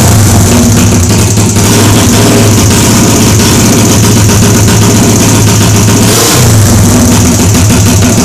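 Mini chopper motorcycle's small engine, fitted with an FCR carburettor, running loudly with some revving.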